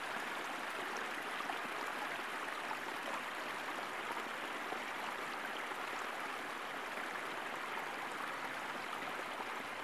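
Steady, even hiss from a cog-railway car standing still at a signal, with no motor or wheel sounds.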